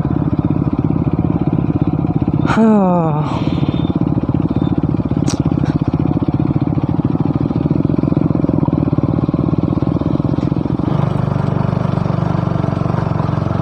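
Motorcycle engine running steadily under way, with a short voice call about two and a half seconds in. The engine note changes about eleven seconds in.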